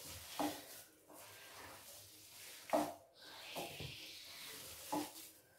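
Hands rubbing and pressing moist fine-semolina dough against a ceramic plate: a handful of soft, gritty scrapes and squishes a second or so apart.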